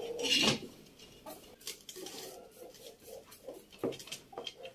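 Wooden spoon scraping and knocking against a plastic bucket while stirring and scooping oily mango and green chilli pickle. There is a louder scrape about half a second in, then scattered lighter clicks and scrapes.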